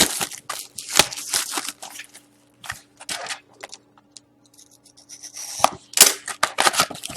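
A cardboard trading-card box being opened by hand: sharp snaps of cardboard and packaging, with scraping and crinkling in between. The loudest snaps come at the start, about a second in, and again near the end.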